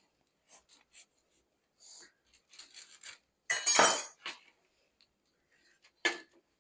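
Kitchen handling noises: light taps and clinks of dishes and utensils, a louder noisy stretch lasting under a second about three and a half seconds in, and a sharp knock near the end.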